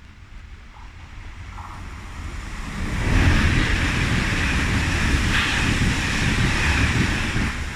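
A passing train: it grows louder over the first few seconds, runs loud with a low rumble and a hiss of wheel and rail noise, then drops off sharply near the end.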